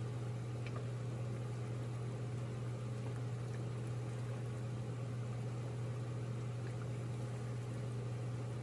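Pot of chicken curry boiling and being stirred with a wooden spoon: a faint bubbling hiss with a few light ticks, under a steady low hum.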